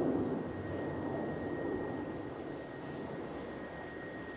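Crickets chirping in a steady rhythm, about three chirps a second, over a faint steady high insect tone and a low rushing noise.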